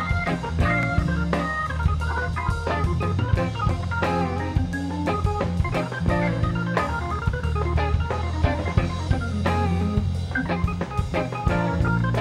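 Organ trio playing live instrumental music: Hammond organ, electric guitar and drum kit, with a steady drum beat under sustained low organ notes.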